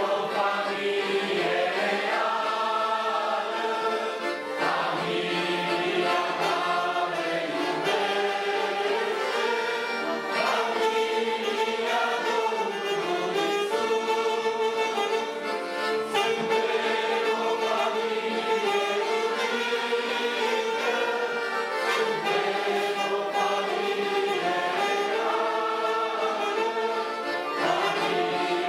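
Live Romanian Christian song: several women's voices singing together, accompanied by two piano accordions and a saxophone, continuing steadily without a break.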